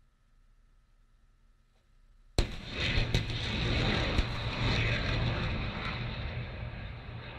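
Rocket artillery salvo: a sudden blast about two seconds in as several rockets launch together, then a sustained rushing roar with a few sharp cracks that slowly fades.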